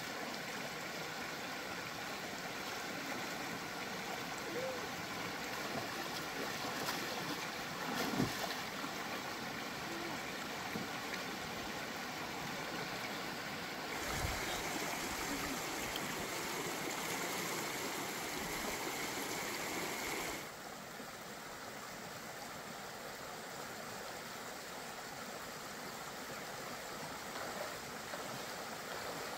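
Shallow rocky stream rushing and burbling over stones in a steady wash of water, with a brief thump about eight seconds in. The rush grows louder and brighter for several seconds in the middle, then drops back.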